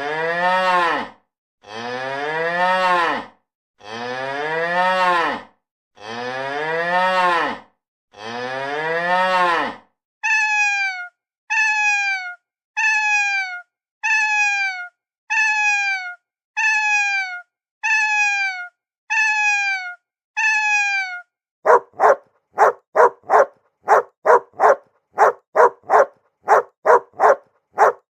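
A cow mooing five times in long, low calls, then a cat meowing nine times in shorter, higher calls that fall in pitch. From about two thirds of the way in, a dog barks rapidly, about two to three barks a second.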